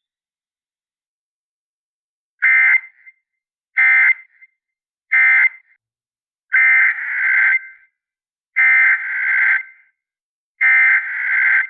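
Emergency Alert System SAME data tones from NOAA Weather Radio: six harsh, buzzing digital bursts. The first three are short and about 1.3 s apart, marking the end of one alert message; the last three are longer and about 2 s apart, the header that opens the next alert.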